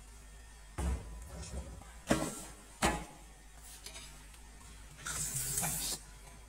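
Metal spoon knocking and scraping in a cooking pot: three sharp clinks in the first three seconds, then a scrape lasting about a second near the end.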